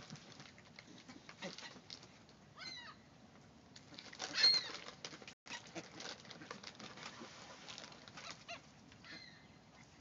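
A flock of American white ibises pecking stale popcorn off sandy ground: a steady patter of small clicks and scrapes from their bills, like ducks dabbling as they eat. A few short high bird chirps come through, the loudest about four and a half seconds in.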